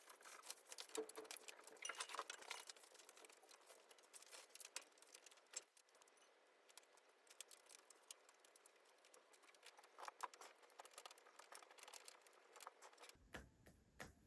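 Near silence with faint, scattered crackling ticks, thicker in the first few seconds and again later. A fuller background comes in abruptly near the end.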